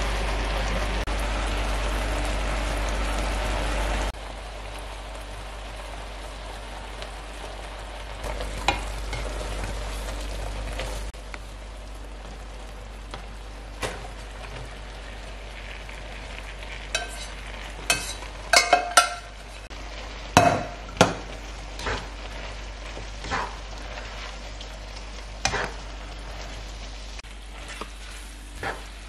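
Creamy mushroom sauce sizzling and bubbling in a frying pan. It drops abruptly to a quieter simmer about four seconds in. Later a run of sharp knocks and clicks comes as pasta is tipped in and stirred through with a spatula against the pan.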